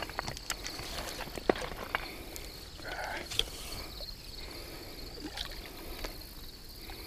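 Water splashing and sloshing at the bank as a released carp is worked out of a landing net, with a few sharp splashes or knocks, the sharpest about a second and a half in. A steady high chirring of insects runs underneath.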